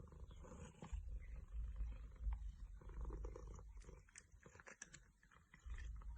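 Domestic cat purring, a low rumble that comes and goes, with a few faint clicks.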